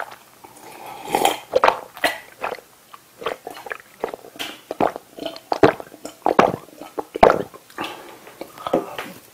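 A man gulping a drink down from a glass: a quick run of loud swallows, about two to three a second.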